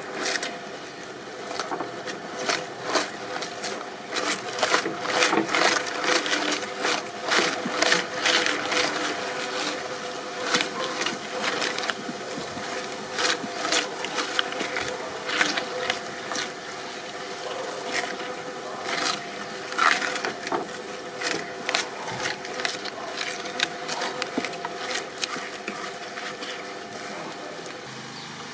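Shredding machine running with a steady hum, its cutters cracking and crunching irregularly as material is broken up. The cracking is densest in the first half and thins out after about twenty seconds.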